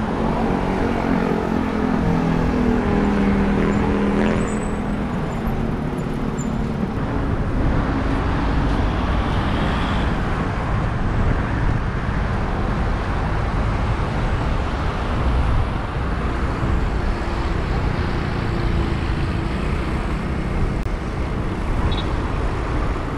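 Street traffic noise: motor vehicles running and passing, over a steady low rumble, with a vehicle engine's hum standing out in the first several seconds.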